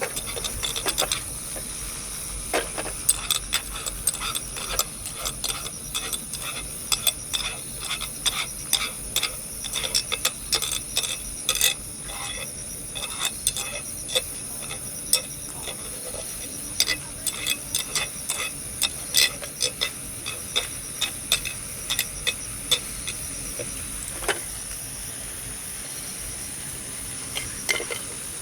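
A metal utensil clinking and scraping against cookware in irregular quick taps, as food is stirred or mixed. A steady high-pitched insect chirring runs underneath.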